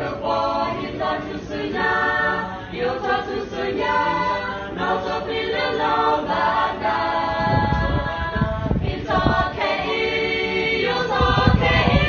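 A small group of young women and men singing together unaccompanied, a cappella, in long held notes.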